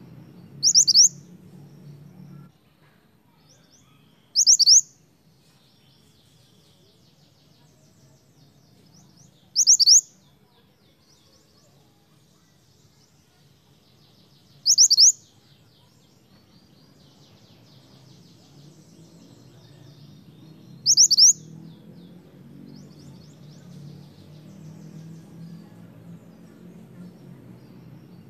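Minivet (mantenan) giving short, loud, high-pitched calls, each a quick double note, five times at roughly five-second intervals, with faint soft twittering between them.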